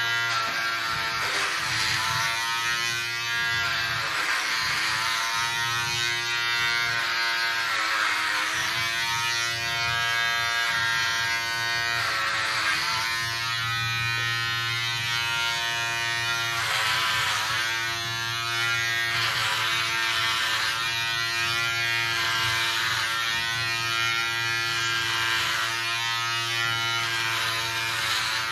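Electric hair clipper buzzing steadily as it shears long hair close to the scalp, its pitch dipping briefly every few seconds as it is pushed through the hair.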